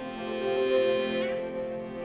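Background music of sustained, held chords, changing chord a little past halfway.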